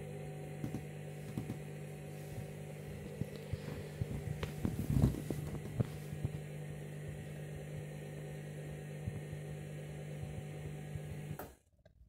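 Candy front-loading washing machine tumbling its drum on a bleaching cycle: a steady motor hum with water and suds sloshing and small knocks. The motor cuts off suddenly near the end as the drum stops.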